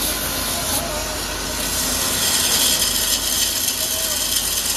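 Belt grinder running with a steel axe head pressed against its abrasive belt, giving a steady grinding hiss. The hiss grows brighter and a little louder about two seconds in.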